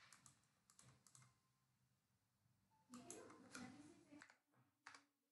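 Near silence with a few faint computer keyboard clicks, scattered in the first second, bunched about three seconds in and once more near the end.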